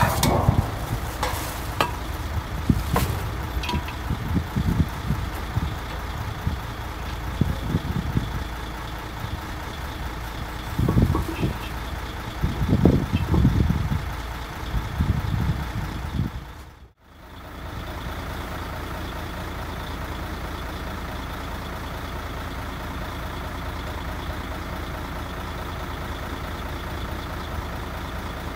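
Heavy truck's diesel engine idling, a steady hum. In the first half it is mixed with knocks, thuds and rustles of cooking gear and a plastic bag being handled. The sound drops out sharply about two-thirds of the way through, then the idle carries on evenly.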